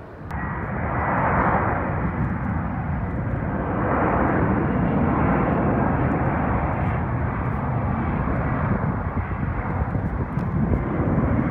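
Twin-turbofan jet noise from an arriving Air Canada regional jet on its landing roll down the runway. It is a steady rushing that comes in abruptly just after the start and holds.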